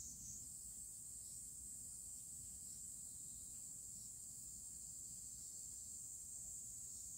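Quiet room tone: a steady high-pitched drone over a faint low hum, with no distinct events.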